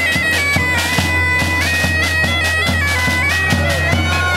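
Bagpipe playing a stepping melody over a steady drone, with a drum beating about twice a second.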